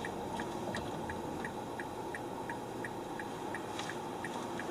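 Car's turn-signal indicator ticking steadily, about three ticks a second, over the steady hum of the car heard from inside the cabin.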